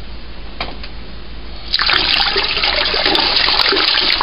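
Sugar and warm water being stirred in a metal pot: a steady rush of sloshing liquid that starts suddenly about two seconds in.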